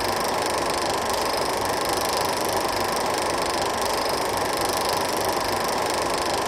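16mm film projector running steadily, a continuous mechanical whirr with no breaks or changes.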